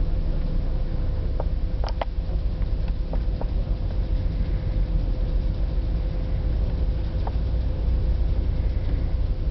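Steady low rumble of a car ferry under way, with a faint steady hum throughout and a few light clicks about two seconds in.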